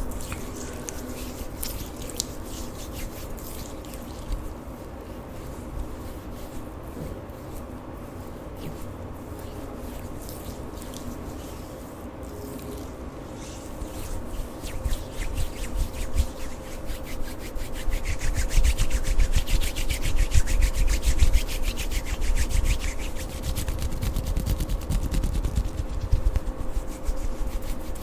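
Lotion being rubbed and squished close to the microphone, a continuous run of wet, sticky clicks and rubbing. It grows louder and busier about two-thirds of the way through.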